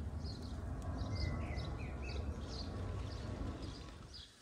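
Small birds chirping repeatedly in short high calls over a steady low rumble of noise on the microphone. The rumble fades near the end.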